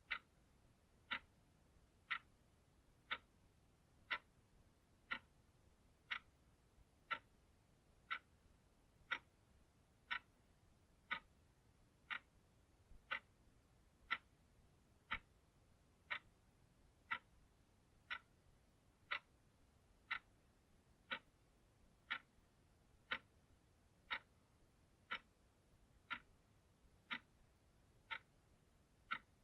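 Analog clock ticking steadily, one sharp tick about every second.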